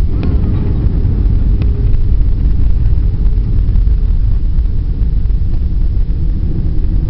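Heavy low rumble in the cabin of a jet airliner on its landing roll just after touchdown, with the wing spoilers deployed: tyres on the runway, airflow and engine noise mixed into one steady rumble.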